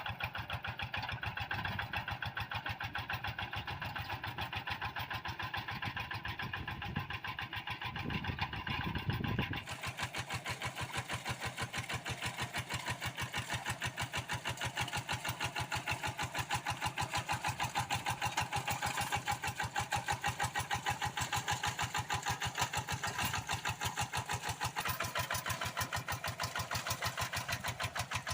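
Single-cylinder Kubota RD85DI diesel of a Quick G1000 hand tractor running with an even, rapid firing beat. About ten seconds in, the sound changes abruptly: the deep low end thins and a brighter clatter comes up.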